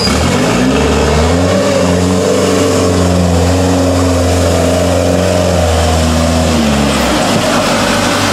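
Avia trial truck's diesel engine revving up under load, held at high revs for several seconds, then dropping back near the end.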